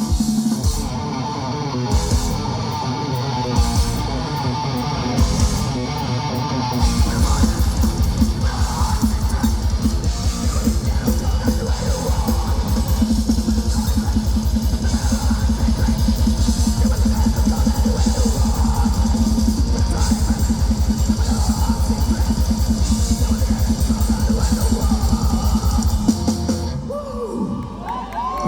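Nu metal band playing live: distorted electric guitars over a drum kit. From about a quarter of the way in, a fast, steady kick-drum pattern drives the song until the band stops near the end, leaving the last chord ringing out.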